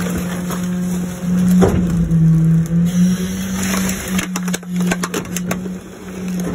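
Garbage truck's hydraulic packer blade crushing a plastic child's car seat and bagged trash, over the steady hum of the truck's engine and hydraulics. Plastic cracks and crunches, with a run of sharp snaps about four to six seconds in.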